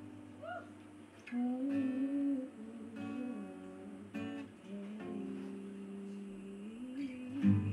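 Acoustic guitar playing a slow intro, with a voice humming a wordless melody over it.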